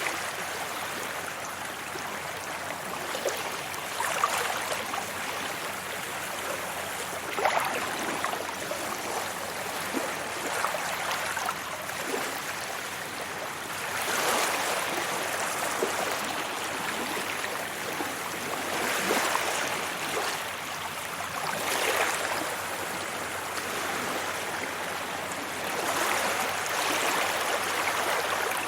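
Sea waves breaking and washing up a beach: a steady rush of water that swells into a surge every four or five seconds, with small splashes in between.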